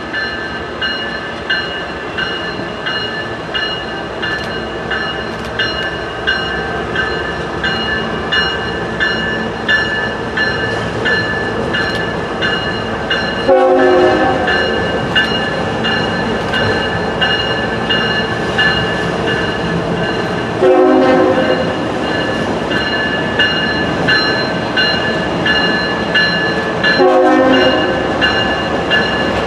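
CSX freight train rolling across a drawbridge, its wheels clicking over the rail joints in a steady rhythm of a bit under two clicks a second, with a steady high-pitched ringing over it.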